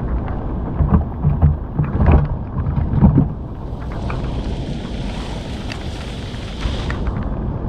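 Low rumbling with scattered knocks and splashes, then about three and a half seconds in a steady hiss of falling water that stops suddenly near the end.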